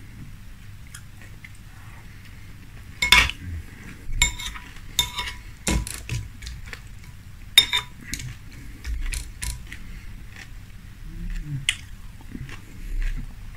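A metal spoon clinking and scraping against a glass bowl of frosted flakes in milk, about eight sharp clinks with brief ringing. Between them, close-miked chewing of the milk-soaked cereal.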